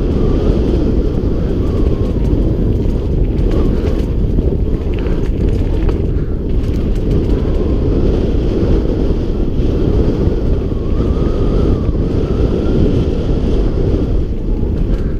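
Wind buffeting the action camera microphone on a mountain bike riding down a dirt trail: a loud, steady low rush with the rumble of the tyres on the dirt underneath.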